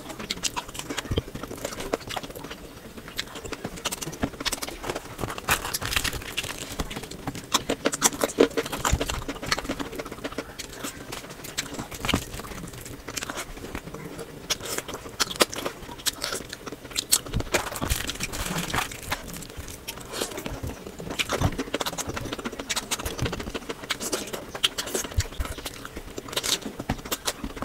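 Close-miked eating sounds of someone eating spicy mutton curry with rice: wet chewing and lip smacking, full of many small irregular clicks.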